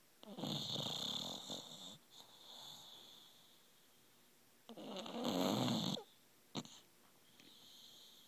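English bulldog snoring in sleep: two loud, rasping snores about four and a half seconds apart, each lasting over a second, with softer breaths in between. A brief sharp click sounds about six and a half seconds in.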